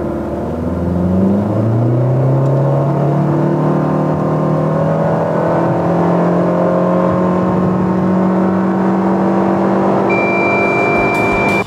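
Toyota Avensis 2.0 Valvematic four-cylinder petrol engine accelerating hard from standstill, heard inside the cabin. The revs climb steeply in the first second or two, then hold high and creep slowly upward, as a CVT automatic does under full throttle. A steady high beep sounds for about a second and a half near the end, as the car passes 100 km/h.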